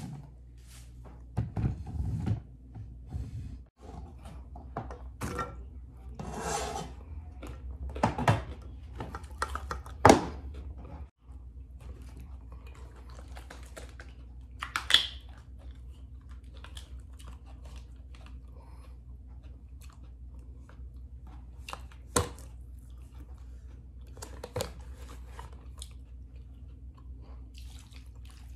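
Scattered kitchen knocks and clatter: a steel cleaver chopping carrot on a plastic cutting board, then a pan and a carton being handled and set down on the counter, over a low steady hum.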